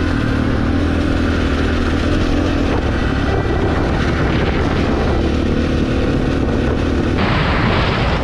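Husqvarna 701 enduro motorcycle's single-cylinder engine running steadily under throttle on a loose gravel track, heard from the bike with wind buffeting the microphone. About seven seconds in the wind hiss gets louder and brighter.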